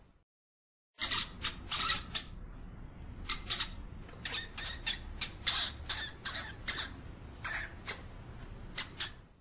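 European hamster making short, high squeaks, many in quick runs of two or three, starting after about a second of silence.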